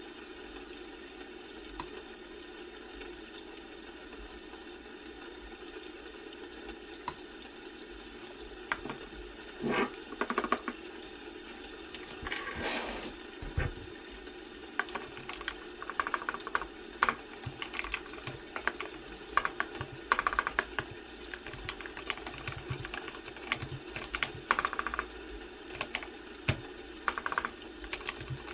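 Computer keyboard typing in short bursts of keystrokes, starting about a third of the way in and growing busier, over a steady background hiss.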